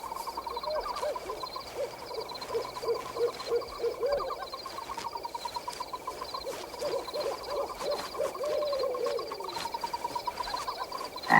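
Night forest sound effects: an owl hooting in a run of short calls, about two a second, over a steady fast-pulsing trill of night insects or frogs.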